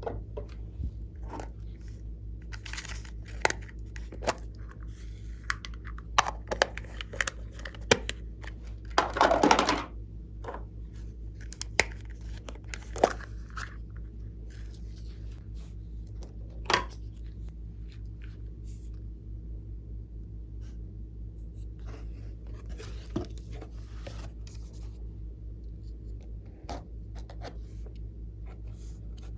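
Glossy slime being worked by hand: scattered sticky clicks and pops, with a longer crackling tear about nine seconds in. A steady low hum runs underneath.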